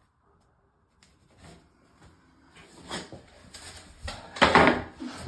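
A laminate floor board being handled and slid on a laminate floor: a few soft scrapes and knocks, the loudest about four and a half seconds in.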